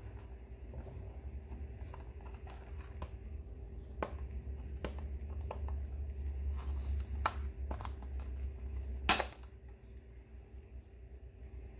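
Hard plastic display case being handled: scattered small clicks and taps, a brief scrape, then one loud snap about nine seconds in as the clear cover comes free of its black base.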